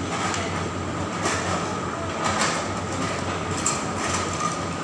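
Steady background din of a busy restaurant, with a few short clicks.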